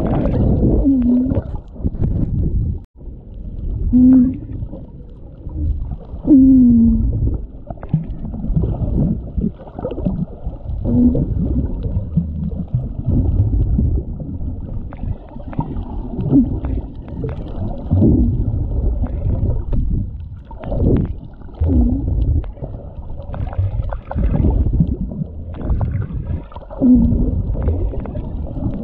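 Muffled underwater sound picked up by a GoPro camera in its housing: a low, uneven rumble of moving water, with short low sounds that bend in pitch every few seconds.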